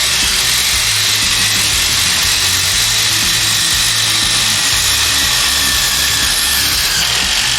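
A HART brushless impact driver and a DeWALT DCF887 impact driver running flat out together, hammering fasteners in with a steady, dense rattle. Background music with a low beat plays underneath.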